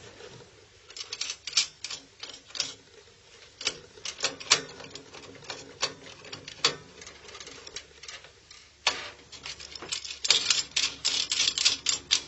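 Irregular sharp clicks and taps of a laptop circuit board being positioned and clamped in a rework station's board holder over the preheater, ending in a quick run of clicking and rattling.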